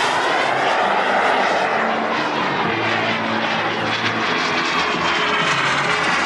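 Twin kerosene turbines of a large-scale RC F/A-18 Hornet model jet running in flight: a loud, steady turbine rush whose tone sweeps as the jet moves past.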